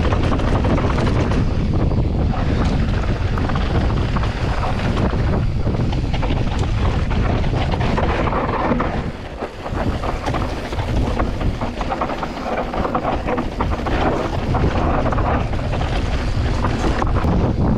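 Mountain bike descending a rough dirt trail: wind rushing on the microphone over tyre noise, with rapid rattles and knocks from the bike over rough ground. The noise eases briefly about nine seconds in.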